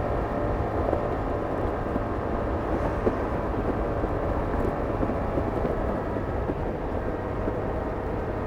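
Yamaha R7's 689 cc parallel-twin engine through its stock exhaust, running at a steady cruise, mixed with wind noise on the microphone.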